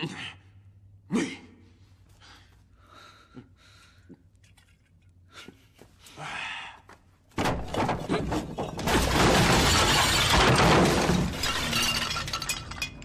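Wine jars being smashed: a few sharp knocks, then about seven seconds in a long, loud crash of shattering and breaking that runs on for several seconds.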